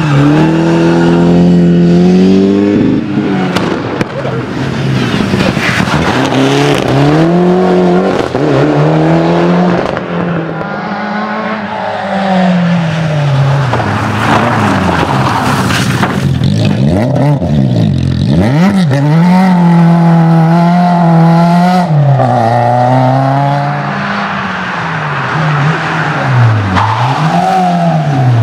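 Rally cars driven hard, an Opel Kadett coupé among them: engines revving high and dropping off again and again through gear changes and lifts, with several sharp falls in pitch as cars go past.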